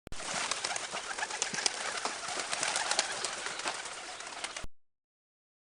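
Birds calling, a dense chatter full of short ticks, which starts abruptly and cuts off suddenly after about four and a half seconds.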